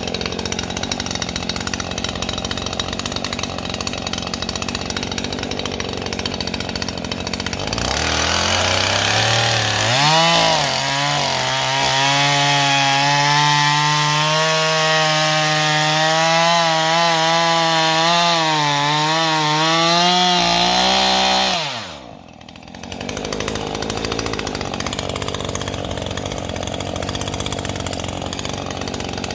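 Husqvarna two-stroke chainsaw running, revved up about eight seconds in and held near full throttle for some thirteen seconds with the pitch wavering, then the throttle is released and it drops sharply back to idle.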